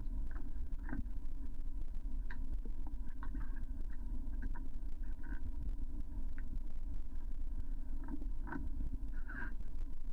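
Steady low underwater rumble with a faint hum, broken by scattered light clicks and taps from the plastic paddles on an AquaPed pool bike's underwater flywheel being adjusted by hand. The loudest tap comes a little before the end.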